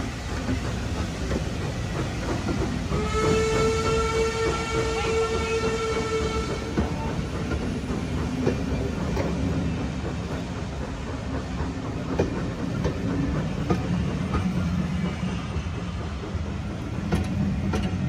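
Railway passenger coaches rolling past, wheels rumbling with occasional clicks over rail joints. A train whistle sounds once, a single held note of about three and a half seconds, starting about three seconds in.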